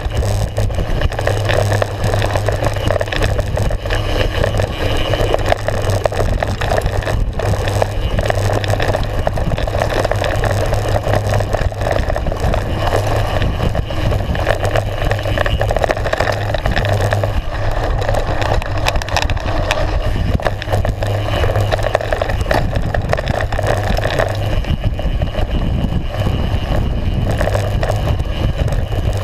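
Mountain bike riding fast down a rough gravel trail: tyres crunching over loose stones and the bike rattling continuously, over a steady low rumble.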